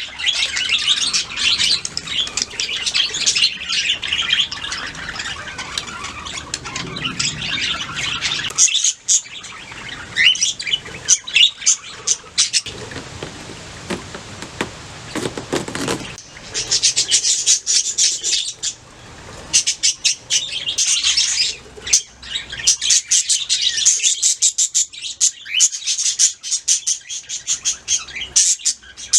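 Budgerigars chirping and warbling in a dense run of rapid, high chirps. The chirping breaks off for a few seconds about halfway through, leaving a softer rushing noise, then resumes.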